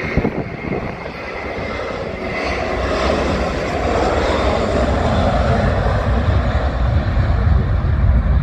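The two jet engines of an Airbus A321 airliner at takeoff power during its takeoff roll: a steady, rumbling jet noise that grows louder from about three seconds in.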